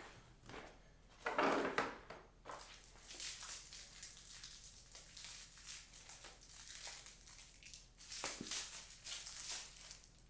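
Crinkling, rustling handling noise of plastic parts, in several bursts, as the plexiglass panel and its handle hardware are moved about.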